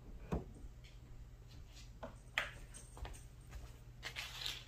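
Faint handling noises, a few short soft knocks and some rustling, over a steady low hum.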